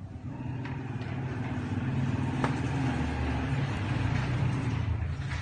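A low, steady motor-like hum that grows louder after about a second, with one sharp click midway.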